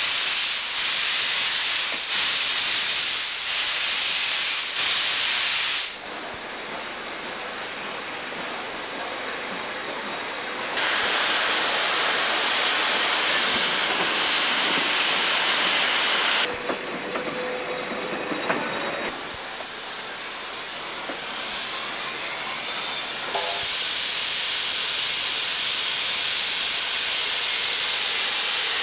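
Ex-South Australian Railways broad-gauge steam locomotive working a train, heard close behind its tender: loud, steady hissing of steam and exhaust. The level drops and jumps abruptly several times.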